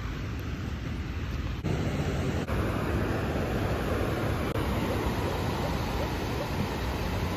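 Steady rushing noise of ocean surf breaking on a sandy beach, mixed with wind buffeting the phone microphone.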